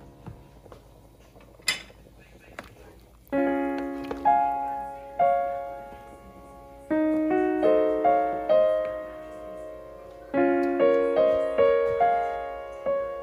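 Background piano music: slow chords, each struck and left to ring out, with melody notes over them, after a quieter first three seconds.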